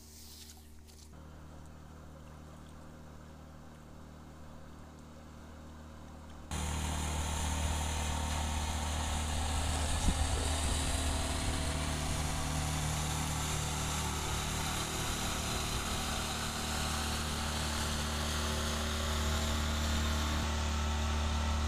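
An engine running steadily, becoming much louder abruptly about six seconds in.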